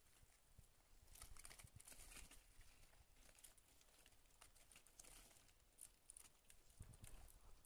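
Faint rustling, crinkling and clicking of hamsters scrabbling over newspaper and wood shavings while nibbling at a bunch of fresh greens.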